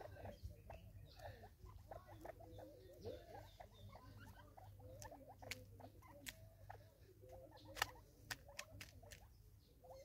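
Quiet, soft low calls and chattering from feeding francolins, with scattered sharp clicks of beaks pecking seed from a plastic bottle feeder; the loudest click comes about eight seconds in.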